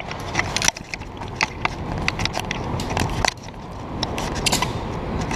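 Movement noise as a firefighter in turnout gear walks: irregular clicks and knocks from gear and footsteps, several a second, over a steady low rumble.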